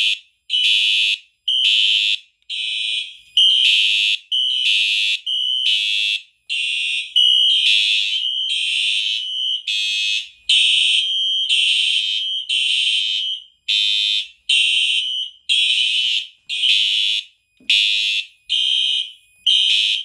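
Simplex fire alarm horn strobes sounding in alarm: a loud, high horn tone pulsing on and off about once a second. The system has been tripped by a System Sensor 2400 smoke detector.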